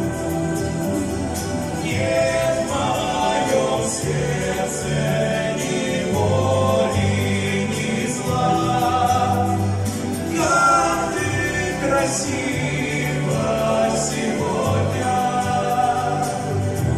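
Mixed choir of men and women singing, long held chords that shift every second or two, with low men's voices under higher ones.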